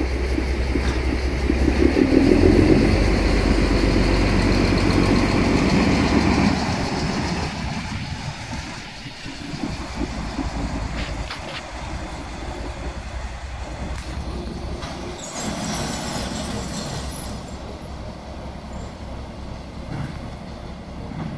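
Frichs ML 12 diesel-electric railcar, with its two Frichs six-cylinder diesel engines, running with a low steady hum as it passes close by and draws away. It is loudest in the first six seconds, then fades. A short hiss comes about fifteen seconds in.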